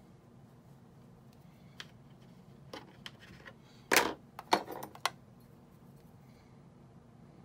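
Scissors and small pieces being handled on a worktable: a few light clicks, then a loud clack about four seconds in, followed within the next second by two more knocks.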